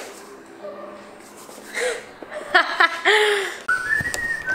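A person laughs briefly in short chuckles, then about three and a half seconds in someone starts whistling a tune, a thin high note stepping up and down in pitch.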